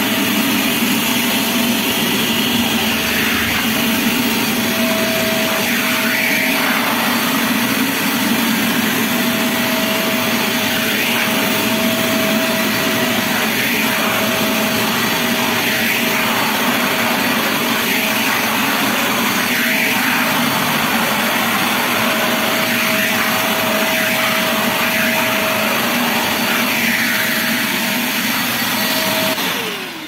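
Truper ASP-06 wet/dry shop vacuum running steadily while its floor nozzle sucks up water from tile, with short slurping surges every second or two. It is switched off near the end and the motor starts to wind down.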